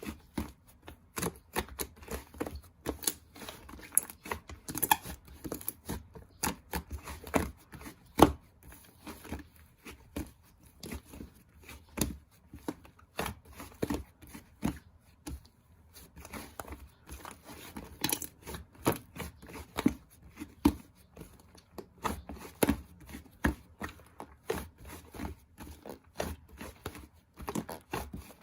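Slime being squished, stretched and pressed by hand, giving a steady run of irregular sticky clicks and small pops.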